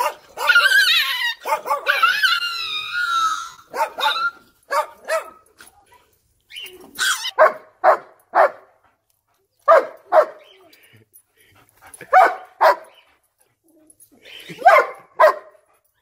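German Shepherd barking: a few seconds of high, wavering whining yelps, then short barks in clusters of two or three with pauses between.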